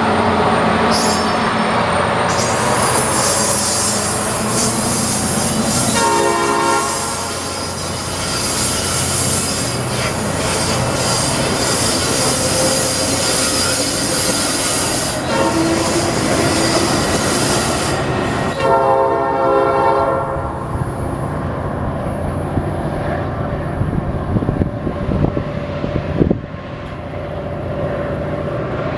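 Metra commuter train passing with rumble and hiss of wheels on rail, its locomotive sounding a multi-chime horn in two blasts, about six seconds in and again near nineteen seconds. After the second blast the high hiss falls away, leaving a lower rumble with a few wheel clicks.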